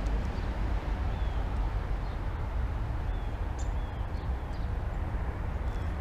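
A bird giving short, high, falling chirps several times, over a steady low rumble.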